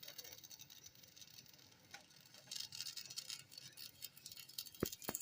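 Stick-welding arc crackling and sizzling as the electrode burns, growing stronger about two and a half seconds in, with two sharp clicks near the end.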